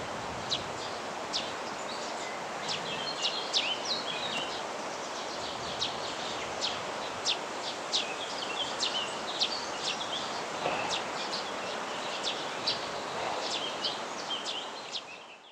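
Birds calling: many short, sharp high calls at irregular intervals, with some twittering, over a steady background hiss. Everything fades out at the very end.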